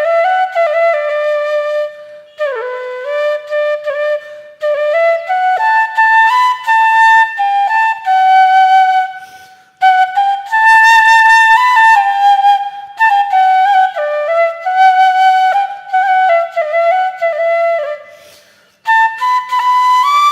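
Background music: a solo flute melody played in phrases of held and stepping notes, with short breaks about 2, 10 and 19 seconds in.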